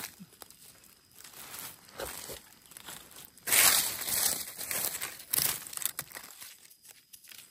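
Dry fallen leaves crackling and rustling in irregular bursts as a gloved hand pushes through the leaf litter. The loudest burst comes about three and a half seconds in.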